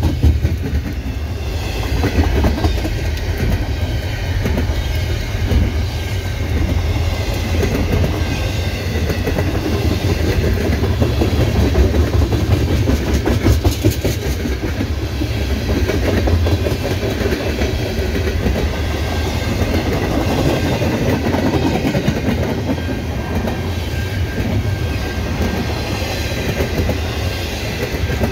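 Freight cars of a CN intermodal train rolling past, a steady rumble with wheels clacking over the rail joints.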